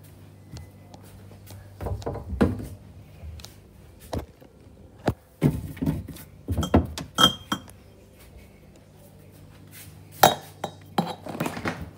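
Glassware clinking and knocking together as a glass mason jar is taken out of a cabinet, in several short bursts of clinks.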